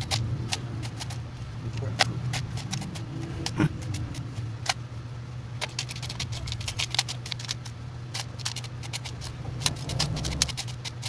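Small metal screws clinking and rattling as fingers stir and pick through a plastic tray full of them: irregular sharp clicks that come thickest about six seconds in. A steady low hum runs underneath.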